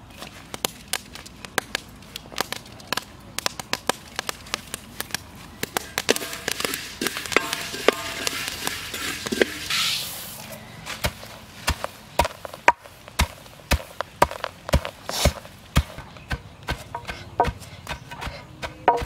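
Unhusked rice grains clicking and rattling in a metal pan, then poured in a rushing stream into a stone mortar about ten seconds in. After that a wooden pestle pounds the paddy in the stone mortar, heavy knocks about two a second, beating the grains into flattened rice.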